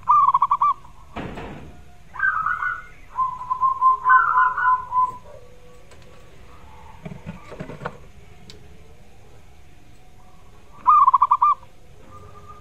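Zebra dove (perkutut) cooing: a rapid stuttering burst of notes, then a run of short coos, and another stuttering burst near the end. A brief rustling noise comes about a second in.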